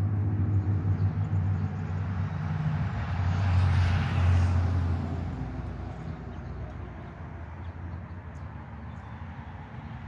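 A motor vehicle driving past: a low engine hum with road noise that swells to a peak about four seconds in, then fades away.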